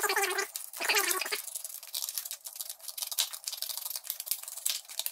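Scissors cutting a strip of worktop edging, a fast run of small snips and clicks starting about a second and a half in.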